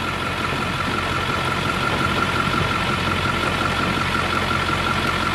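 A vehicle engine idles steadily, with a constant thin high tone above it.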